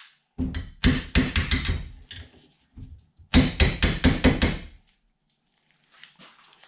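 Hammer striking a rusty John Deere mower-deck spindle held in the hand, metal on metal, tapping it apart. There are two quick runs of about seven light blows each, the second starting about three seconds in.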